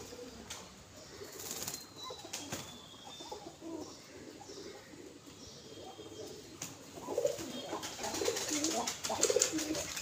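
Domestic pigeons cooing close by, with bursts of wing flapping as birds fly on and off a hand. The cooing and flapping are heaviest in the second half.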